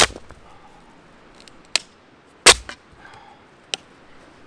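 Dry firewood being snapped by hand: sharp cracks a second or so apart, loudest at the start and about two and a half seconds in, with lighter snaps between.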